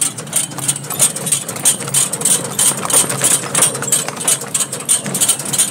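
Horse-drawn cart on the move along a gravel road: the horse's hooves clopping and the cart rattling in a quick, even rhythm of about four or five strikes a second.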